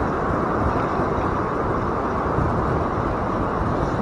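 Steady rushing noise of surf washing in around the legs, mixed with wind on the microphone.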